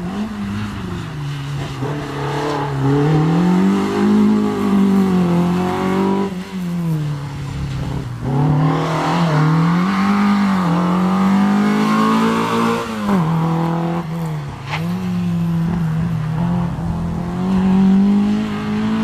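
Peugeot 205 Rallye Group A's four-cylinder engine revving hard while the car is driven through tight turns, its pitch rising and falling again and again, with several sudden drops in pitch.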